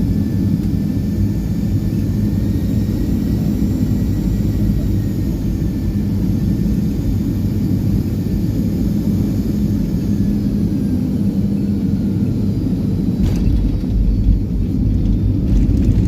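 Aircraft cabin noise during landing: a steady low engine rumble with a faint whine. About thirteen seconds in comes a knock, then the rumble grows louder and rougher as the wheels touch down and the plane rolls out.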